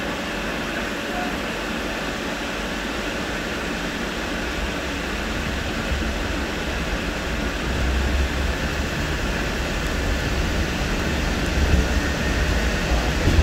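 Hong Kong Peak Tram fifth-generation funicular car running on its rails: a steady rumble that grows louder about halfway through, with a couple of heavier bumps near the end.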